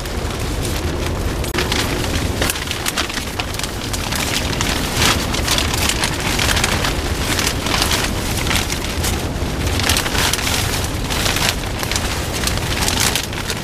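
Thin plastic sheeting crinkling and rustling in irregular bursts as it is handled and pulled down over a person's head, with rain pattering on a plastic shelter.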